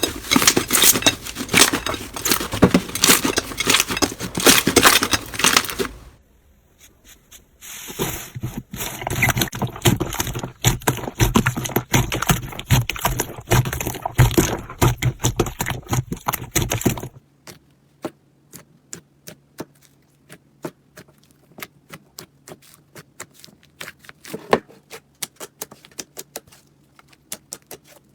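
Slime being squeezed and worked by hand, giving dense crackling and popping clicks. After an abrupt change about two thirds of the way through, only sparse single pops remain.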